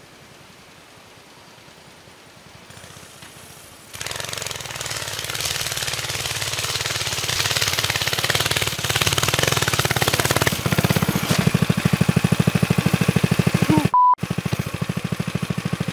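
Engine of a homemade front-wheel-drive motorcycle starting about four seconds in, then running with a rapid pulsing beat and growing louder as the bike rides over snow toward the camera. It cuts out for a moment near the end, then goes on heard up close.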